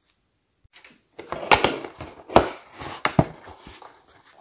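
Scissors snipping the seals of a cardboard toy box, then the card lid flap being pried up and pulled open: several sharp snaps and clicks with card scraping and rustling between them, starting about a second in.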